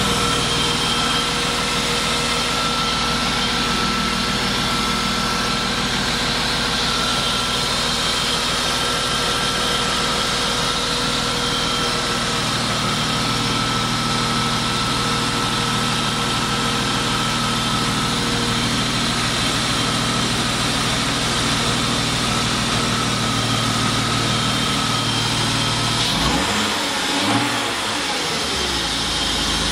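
BMW car engine idling steadily on its first run after two months standing unused. Near the end the engine note briefly wavers.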